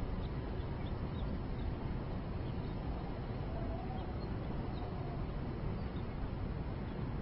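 Steady low rumble of city background noise picked up by an outdoor rooftop webcam microphone, with a few faint, short high chirps scattered through it.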